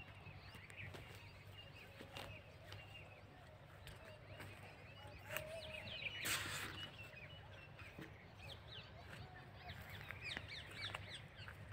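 Small birds chirping, faint, with many quick short chirps crowding together in the last few seconds and a brief louder rustle-like burst a little after six seconds in, over a steady low hum.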